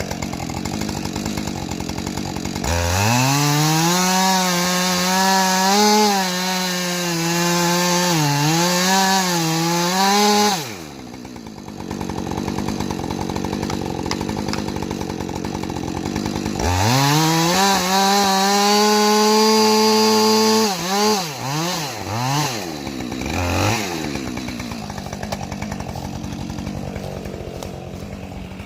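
Husqvarna 545 Mark II two-stroke chainsaw idling, then opened to full throttle for about eight seconds of cutting, with the pitch sagging under load. It drops back to idle, runs up again for a shorter cut, is blipped a few times, and settles to idle.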